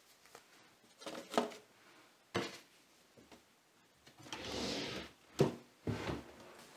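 Small objects handled on a table: a few separate knocks and clicks, with a short rustle or scrape about halfway through.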